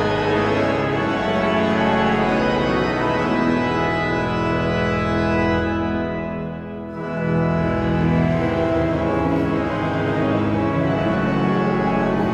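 Pipe organ playing a hymn tune in full sustained chords. About six seconds in the sound thins and dips briefly at the end of a verse, while the organist changes stops, then the next verse begins at full strength.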